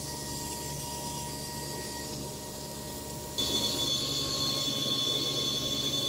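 Handheld 120 W car vacuum cleaner motor running with a steady whine. About three and a half seconds in it gets louder and a higher-pitched whine comes in.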